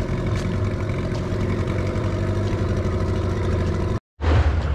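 Motorboat engine running steadily at an even speed. Near the end it cuts off abruptly and a different noisy rush takes over.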